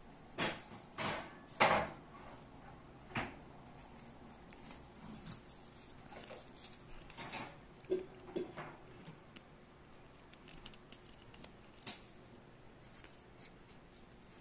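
A Casio Pro Trek PRG-30's soft silicone-resin band being fastened on a wrist: three quick rubbing, sliding strokes of the strap in the first two seconds, then scattered soft scrapes and light clicks as it is threaded through the metal buckle.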